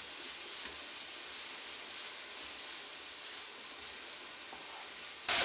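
Faint, steady sizzle of chopped beetroot, onion and coconut frying in oil in a pan.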